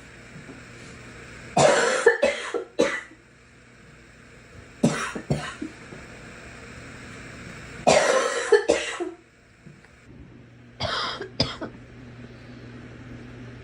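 A girl coughing in four short fits of two to four coughs each, a few seconds apart.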